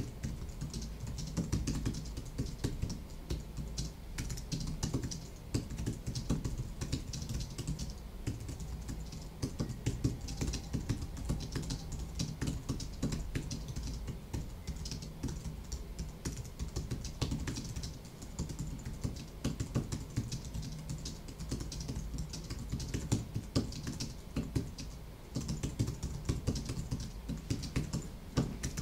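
Typing on a computer keyboard, a dense run of key clicks with brief pauses.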